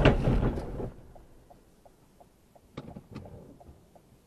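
A sudden loud thump with a rattle, under a second long, inside a car that is stopping short behind another car cutting across its path at walking speed. Faint, regular ticking follows, then two sharper clicks about three seconds in.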